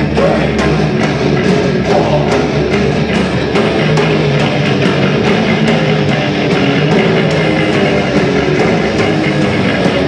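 Thrash metal band playing live: heavily distorted electric guitars and bass over a drum kit keeping a steady, evenly spaced beat.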